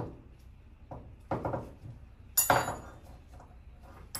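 Metal hand tools clinking and clattering in a few separate knocks, with the loudest, ringing clatter about two and a half seconds in.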